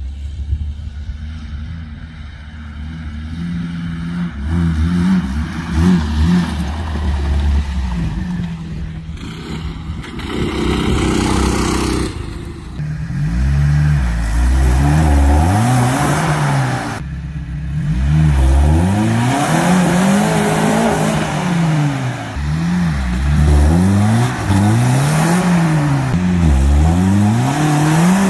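Suzuki Samurai engine running under hard load. From about halfway through it revs up and down over and over, each rev rising and falling in pitch, as it bounces off the rev limiter.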